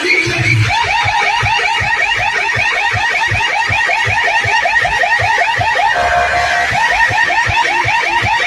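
DJ sound system loudspeakers blasting a siren-like electronic track: a fast warbling alarm tone of about seven swoops a second over a steady bass beat. The warble drops out briefly about six seconds in, then comes back.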